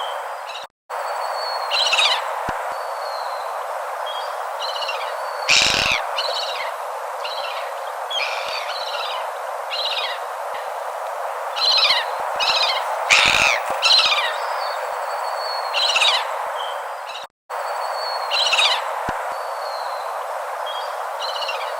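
Many short bird chirps and calls, some sliding down in pitch, over a steady hiss. The track cuts out briefly about a second in and again near the end, then repeats.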